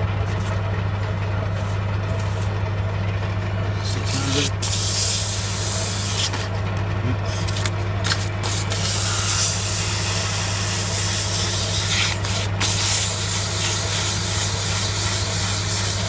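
Metal lathe running steadily with a low hum, while emery paper is held against the spinning metal bar to smooth its finish, giving a hissing scrape. A few short sharp ticks come now and then.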